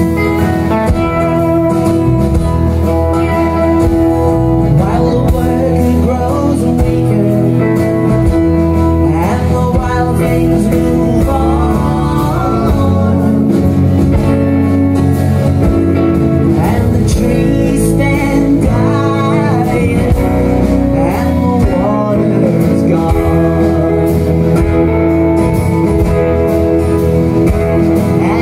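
Live country band playing an instrumental break: acoustic and electric guitars over bass and drums, with a lead line that bends up and down in pitch several times.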